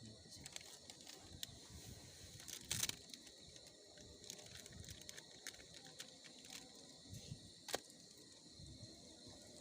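Faint steady high-pitched insect chirring. It is broken by scattered light clicks and two sharper knocks, about three seconds in and near the end.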